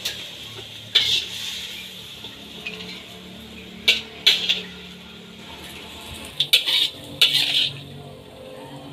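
Metal spatula scraping and clanking against a metal wok as cooked green beans are scooped out for serving. The strokes are short and irregular, with a cluster of several close together near the end.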